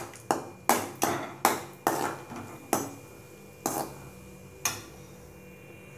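Perforated metal ladle knocking and scraping against an aluminium kadai while stirring cashews and raisins frying in ghee. About eight sharp clinks come quickly at first, then further apart, and stop about four and a half seconds in.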